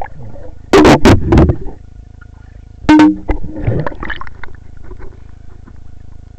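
Water splashing and bubbling right against a waterproof camera as it moves through the water and breaks the surface: two loud, rushing bursts about a second in and again about three seconds in, over a faint steady hum.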